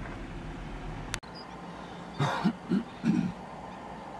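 A sharp click about a second in, then a person coughing three short times.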